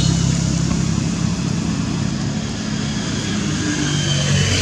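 A motor vehicle engine running steadily nearby, a low hum with a rushing noise over it; the hum dips a little and shifts in pitch about halfway through.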